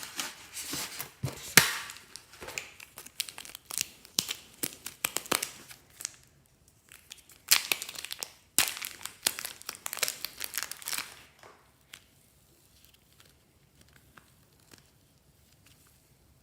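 Crinkling and tearing of some crinkly material being handled, in two bouts of about six and four seconds, then only faint ticks for the last few seconds.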